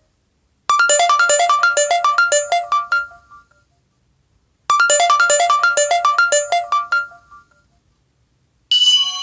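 LG V20 built-in ringtone: a short, bright melodic phrase of rapid notes, played twice with a pause of a couple of seconds between. A different ringtone starts near the end.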